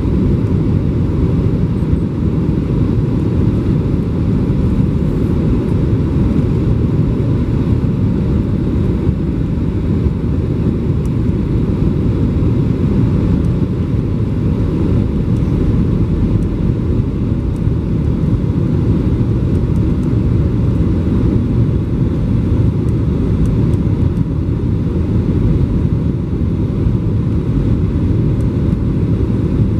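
Steady cabin noise of a Boeing 737-800 on approach with flaps extended: a deep, even roar of its CFM56 engines and the airflow over the airframe, heard from a window seat over the wing.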